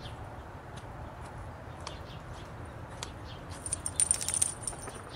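A brief jingle of small metal pieces shaking together about four seconds in, over a low steady outdoor rumble with scattered faint ticks.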